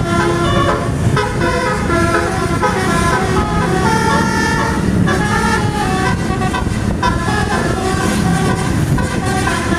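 A bus's multi-tone 'telolet' horn playing a quick melody of changing notes, one after another, over the low rumble of the bus.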